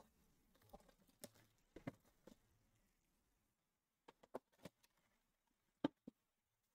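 Faint, scattered clicks and taps of hands handling and turning a sealed cardboard trading-card box. The loudest tap comes near the end.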